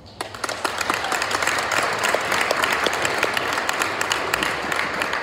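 Audience applause: many people clapping at once, starting suddenly and easing off slightly near the end.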